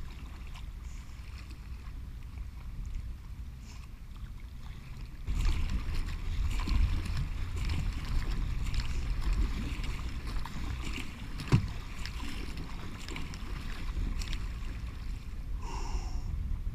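Wind buffeting the microphone over water splashing and lapping around a kayak moving through choppy water. The wind grows stronger about five seconds in. There is a single sharp knock about halfway through.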